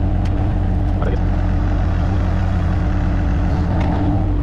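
Diesel engine of a digging machine running steadily, with a constant hum and a steady whine over it, and a few light clicks.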